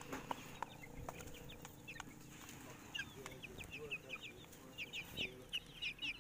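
Chickens calling: a quick run of short, high-pitched calls, thickest in the second half, with a few scattered clicks.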